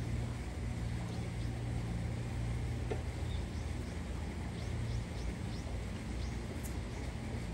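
Outdoor ambience: a steady low hum with short, high bird chirps, several in quick succession between about four and a half and six and a half seconds in.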